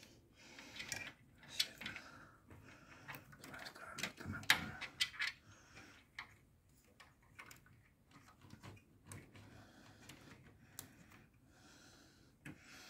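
Cables being pushed and tucked by hand around a CPU cooler's pump block inside a PC case: scattered small plastic clicks, taps and rustles, busiest in the first half and sparser later.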